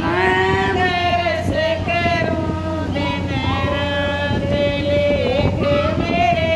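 Women singing a devotional bhajan, one held, ornamented melodic line after another without a break.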